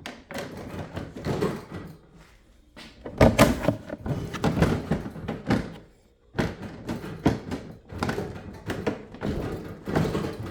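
Hard-plastic Ryobi LINK tool box knocking and clunking against the LINK crate as it is set on and latched into place: an uneven series of thunks and clicks, heaviest about three seconds in and again in the second half.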